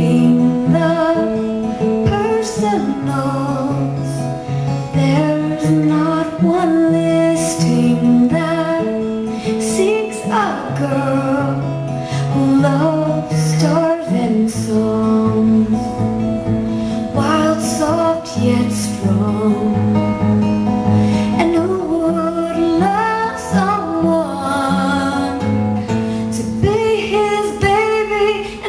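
A woman singing live while strumming an acoustic guitar. Steady chords carry under her sung lines, which come in phrases with short gaps.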